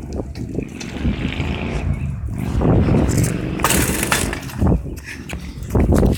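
Wind buffeting a phone's microphone, with heavy rumbling handling noise and several sharp clattering knocks as the phone is jostled and tumbles.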